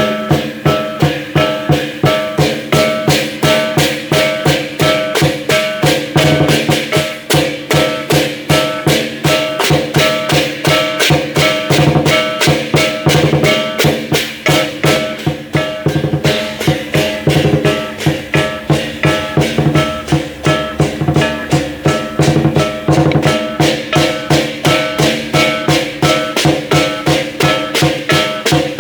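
Chinese lion dance percussion band playing: drum, cymbals and gong at a fast, steady beat of about four strikes a second, with ringing metal under the drum strokes.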